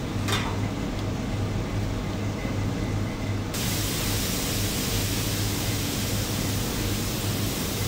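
Steady low hum and hiss of kitchen machinery, with a brief high sound sliding down in pitch near the start; the hiss turns brighter abruptly about three and a half seconds in.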